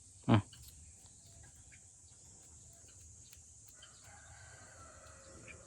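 A single short, sharp bird call about a third of a second in, followed by quiet.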